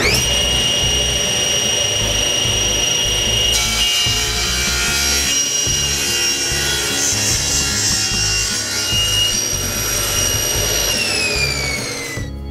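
Table saw running with a steady whine that comes up to speed at once, its blade cutting through a laminated curly maple and purpleheart block on a crosscut sled from about three and a half seconds in. Near the end the whine falls in pitch as the saw winds down.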